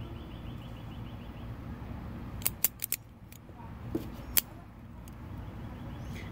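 Cohiba double-blade guillotine cigar cutter being handled: a few sharp clicks, four in quick succession about two and a half seconds in and two more around four seconds, over a steady low background hum.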